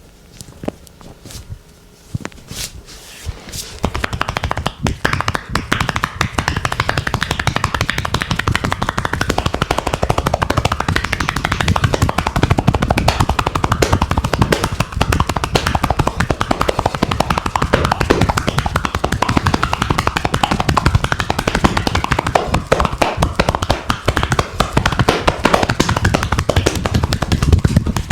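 Hands striking bare skin in massage tapotement, the rapid chopping and slapping percussion of a rough deep-tissue massage. A few separate slaps at first, then from about four seconds in a fast, unbroken run of strikes that keeps going.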